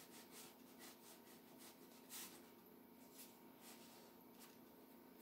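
Near silence with faint short strokes of a fine round watercolour brush on paper, a few each second and one slightly stronger about two seconds in, over a low steady hum.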